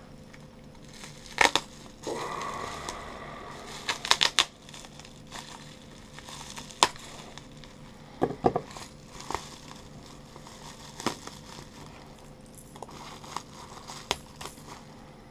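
Bubble-wrap and plastic packaging crinkling and crackling as it is handled and pulled open from around a fishing lure, with scattered sharp crackles, a cluster of them about four seconds in.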